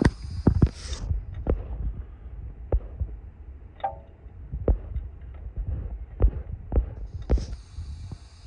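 Irregular metal knocks and clunks of a wrench threading the EGT probe fitting into the freshly drilled and tapped exhaust manifold, about one every half second to second, over a low steady rumble.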